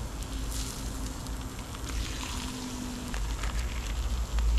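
Tortillas sizzling in melted butter on a hot Blackstone flat-top griddle: a steady frying hiss over a low rumble.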